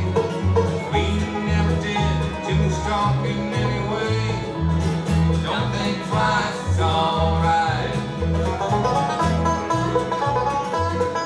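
Bluegrass band playing live: an upright bass plucks a steady pulse of notes under strummed acoustic guitar and rolling banjo, while a man sings the lead vocal.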